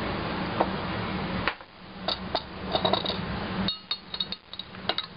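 A steady pour of liquid for about a second and a half, then a metal spoon clinking against a tall drinking glass in irregular taps while a chocolate drink is stirred.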